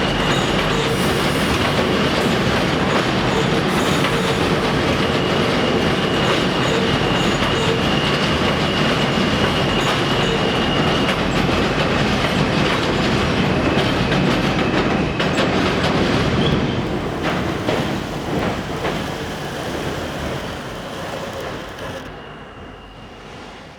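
N/Q elevated subway train passing close by: loud steady rumble and wheel clatter with a thin high wheel squeal over it. It dies away over the last several seconds as the train moves off.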